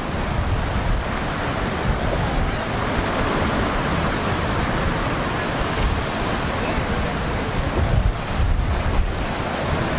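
Rough waves rushing and breaking, with wind buffeting the microphone in gusts.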